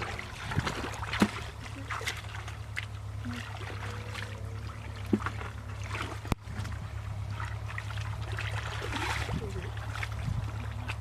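Water trickling and splashing, with scattered small knocks and clicks and one sharp click about six seconds in, over a steady low rumble.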